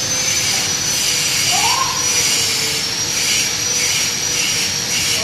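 Loud, steady machine noise with a constant high whine and a fainter low hum, and a short rising tone about a second and a half in.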